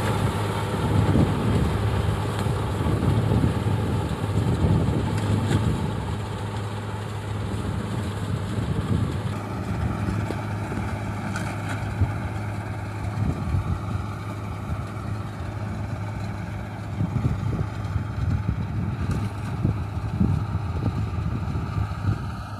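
Diesel tractor engine running steadily under load while driving a mounted reaper cutting standing wheat, a continuous low hum with mechanical noise over it.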